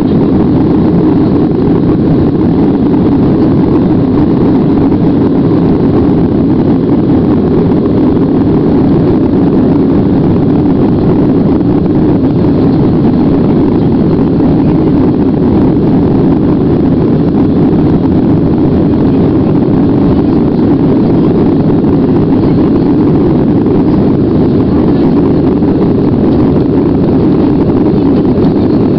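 Steady jet engine and airflow noise heard inside an airliner's cabin as it climbs after takeoff, a loud, even rumble that does not change.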